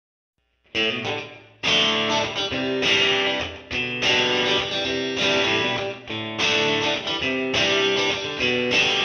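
Background music led by guitar, starting just under a second in after a brief silence and going on in phrases of plucked and strummed notes.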